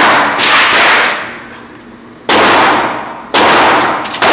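Gunshots, about three in quick succession, each a sharp crack that rings on for nearly a second.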